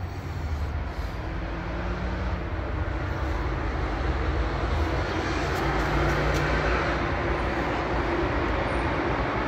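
Outdoor vehicle noise: a steady rumble with a faint engine hum that swells over the first few seconds, then holds.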